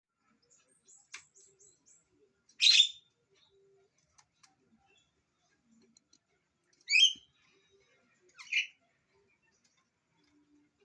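Javan myna calling: a run of faint, short high chirps in the first two seconds, then three loud harsh calls a few seconds apart.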